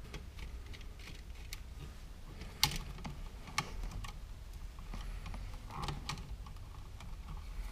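Scattered small metal clicks and taps of a screwdriver working the terminal screws and wires of a GFCI outlet to disconnect a wire, the sharpest click about two and a half seconds in.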